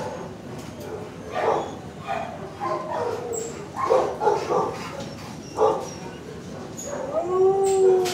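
Dog barking and yipping in short, separate calls, then one longer whining call near the end that rises and falls in pitch; the dog is excited and hoping to be taken for a walk.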